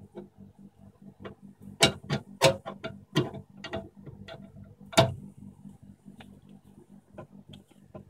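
Screwdriver clicking and knocking irregularly against the metal of a constant pressure expansion valve during adjustment, with a few sharp louder knocks. A steady low hum of the running refrigeration compressor sits underneath.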